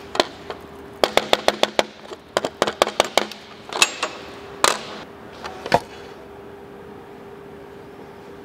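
Aluminum stick electrode tapped and scratched on the aluminum plate to strike an arc: a quick run of about a dozen sharp clicks and crackles about a second in, then a few scattered ones, as the arc catches only for an instant and will not hold. A faint steady hum runs underneath.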